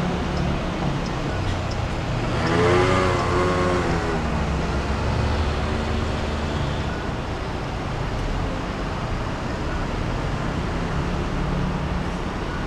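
Steady traffic rumble from the surrounding roads. One louder vehicle passes about two to four seconds in, its pitch rising and then falling.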